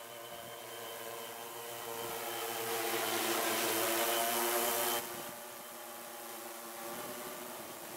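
Large multirotor drone's propellers whirring in a steady, many-toned hum that grows louder as it comes closer, then drops off suddenly about five seconds in.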